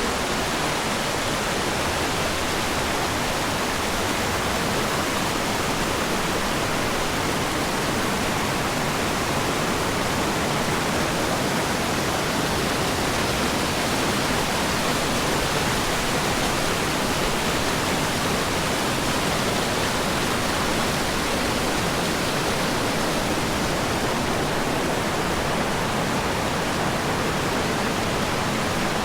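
Mountain creek water rushing steadily beneath a trail footbridge, an even, unbroken noise.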